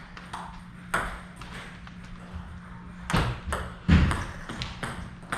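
Table tennis rally: a celluloid-plastic ball struck with rubber-covered bats and bouncing on the table, giving irregular sharp pocks, the strongest cluster about three to four seconds in.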